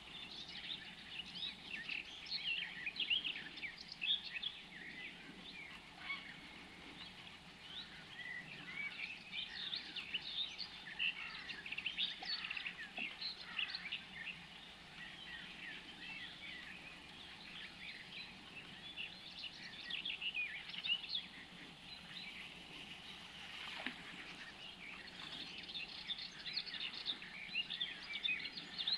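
Songbirds chirping and singing, many short quick notes overlapping, over a faint steady background hiss.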